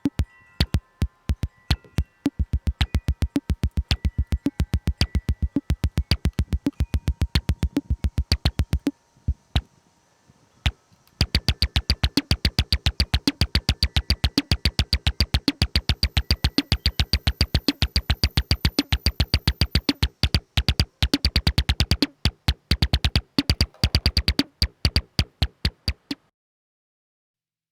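Lorre-Mill Double Knot synthesizer playing a fast stream of short, clicky percussive notes in a drum-machine-like pattern. Faint held tones sound under the hits at first. The pattern thins out about nine seconds in, comes back in full about two seconds later, and cuts off suddenly near the end.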